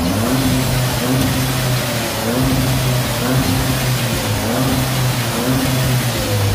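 Seat Ibiza Bocanegra's turbocharged petrol engine being revved at standstill through its factory exhaust: short rev blips rising and falling roughly once a second over a steady running note.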